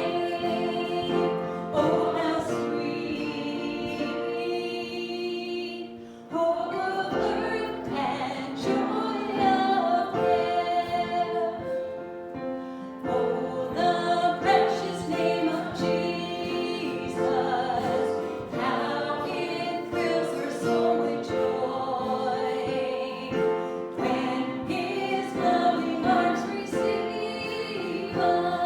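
Congregation singing a hymn together in several held voices, with a short break in the singing about six seconds in.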